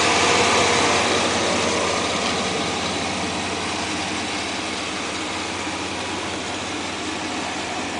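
1998 Chevrolet S10 SS pickup's 4.3-litre V6 idling steadily, loudest at first and fading over the first few seconds before holding level.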